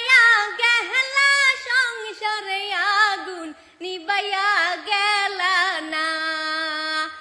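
A woman singing solo in Bengali with no instruments, a wavering, ornamented melody with vibrato, settling on a long held note near the end before fading.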